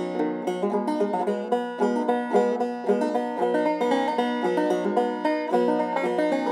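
Open-back five-string banjo played in a two-finger index-lead picking style, an old-time tune in a steady, continuous run of plucked notes.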